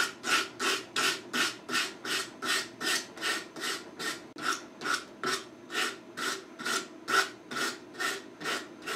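Hand sanding block with sandpaper rubbing back and forth along the forend of a wood-and-Bondo rifle pattern stock, rounding it over. Regular, even strokes, about two and a half a second.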